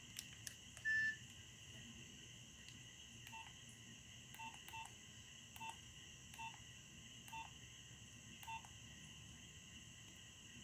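Nokia 6010 keypad beeps, as on a phone's keys being pressed. A few faint key clicks come first. About a second in there is one short, louder, higher beep, then seven short, lower beeps at uneven gaps of roughly a second.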